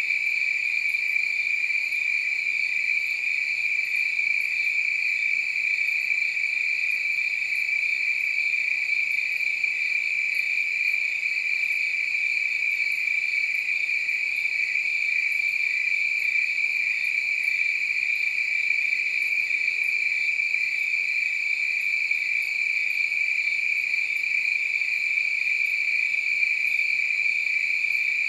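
A steady, unbroken chorus of crickets chirping at night, a high continuous trill with weaker higher-pitched insect calls layered over it.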